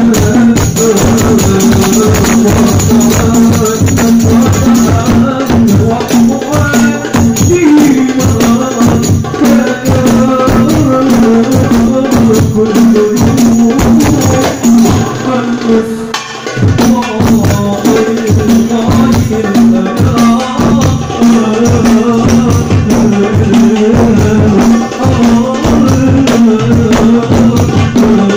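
Hadrah percussion ensemble playing a driving rhythm on a darbuka and rebana frame drums, with a man singing sholawat through a microphone. The playing briefly thins out a little past halfway.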